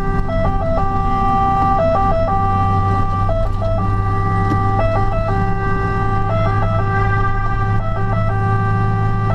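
Fire engine's two-tone siren heard from inside the cab, its note held and then dropping briefly to the lower tone in pairs about every second and a half, over the steady drone of the truck's engine.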